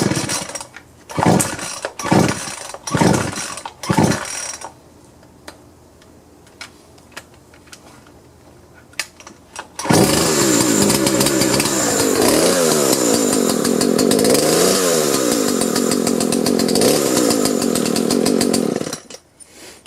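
Husqvarna 120 two-stroke chainsaw being pull-started: about five quick rope pulls in the first few seconds, a pause, then the engine starts about ten seconds in and runs, revved up and down a few times, until it shuts off near the end. The recoil starter is catching without slipping now that its spring has been flipped to seat properly on the pulley.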